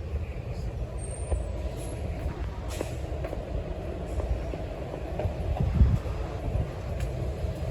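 Steady low rumble of street traffic, with a brief louder swell a little before the end.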